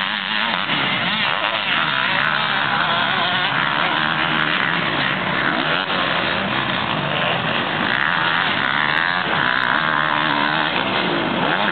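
Motocross dirt bike engines running on a track, their pitch rising and falling as the riders rev and shift gears.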